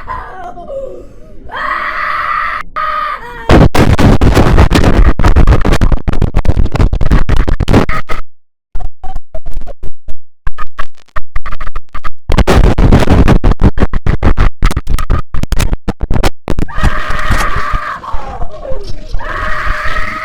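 IBM OS/2 Warp 3 shutdown sound, heavily effects-processed: loud, distorted and stuttering, with pitch glides near the start and end and a brief cut to silence about eight seconds in.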